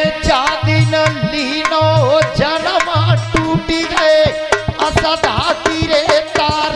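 A man sings a Hindi devotional barahmasi folk song in bending, ornamented phrases. Under the voice is a steady drone note and a hand drum playing a regular rhythm of deep bass strokes and sharp slaps.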